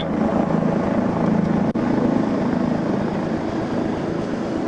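A vehicle's engine running steadily, a low continuous rumble, with a brief dropout about two seconds in.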